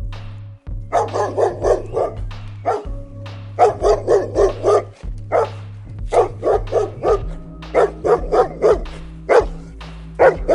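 Dog barking in quick runs of several sharp barks a second, with short pauses between runs, over steady background music.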